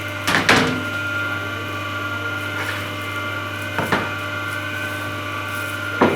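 Hydraulic C-frame cutting press running, its motor and pump giving a steady hum with a few constant tones. Sharp knocks come twice in quick succession about half a second in, once about four seconds in, and once near the end.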